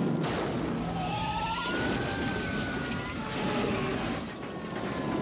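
Fire engine siren wailing, its pitch rising slowly and then falling away, over a dense rumbling noise, with a sharp crash just after the start.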